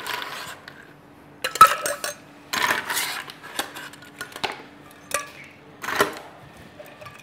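Ice scooped from a steel ice bucket and dropped into a metal cocktail shaker tin: a series of sharp clattering rattles, about six in all, spread over several seconds.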